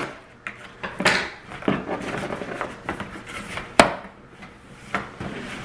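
Packing tape being peeled off a cardboard shipping box and the cardboard flaps pulled open: a series of tearing rips, crackles and knocks, with one sharp snap about four seconds in.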